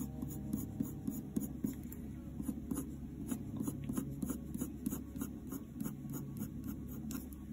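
Faber-Castell Polychromos coloured pencil drawing on hot-pressed watercolour paper in short, quick strokes. Its scratchy ticks come about three or four times a second as fine hair lines are put in.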